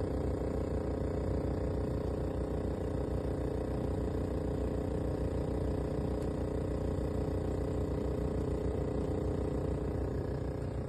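Midea 8,000 BTU inverter window air conditioner running: a steady mechanical hum with several held tones over a low drone.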